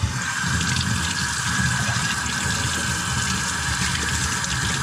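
Water running steadily from a tap, rinsing off a freshly zinc-plated part.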